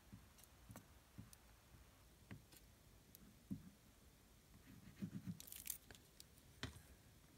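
Near silence, with a few faint light taps and a brief soft rustle about five seconds in as a paper-glue bottle's tip is dabbed onto a small paper strip and then lifted away.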